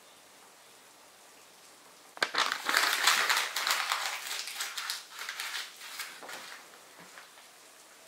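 Loud rustling and crackling, a dense run of small crackles, starting about two seconds in and dying away over the next four seconds.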